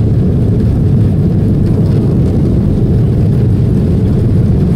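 Airbus A330 airliner on its takeoff roll, heard inside the cabin: a loud, steady, low rumble of the jet engines at takeoff power and the runway.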